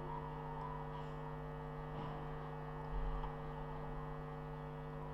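Steady electrical hum, with a brief low bump about three seconds in.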